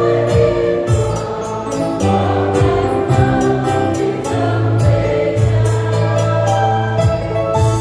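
Mixed choir of women's and men's voices singing a Vietnamese church hymn, with instrumental accompaniment: a low sustained bass line and a steady percussive beat.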